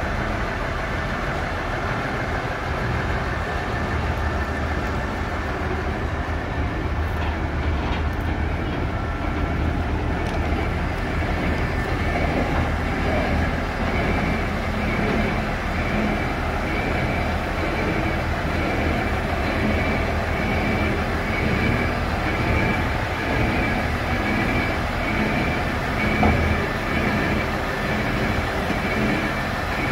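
A diesel railcar turning on a railway turntable: a steady low hum and rumble. A faint high pulsing tone joins about ten seconds in.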